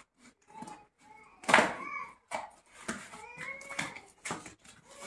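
Cardboard box flaps being pulled and torn open by hand, with sharp clicks and rustles. Over them come short, high-pitched bending vocal sounds, the loudest about a second and a half in.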